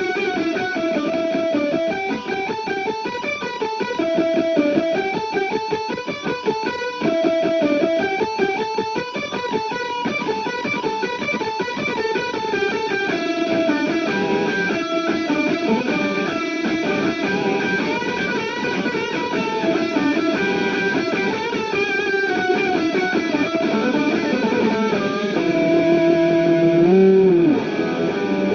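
Electric guitar played through an ADA Pitchtraq pitch-shifter/harmonizer, a continuous run of picked notes and chords, with a note bent up and back down near the end.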